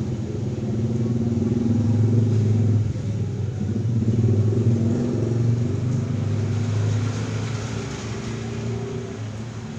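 A motor vehicle engine running close by, with a low steady hum that grows louder over the first few seconds and then slowly fades.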